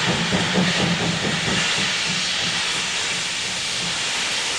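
Steam locomotive 03 204, a class 03 Pacific, working with its train: rhythmic exhaust chuffs, about three a second, fade after about a second and a half into a steady hiss of steam.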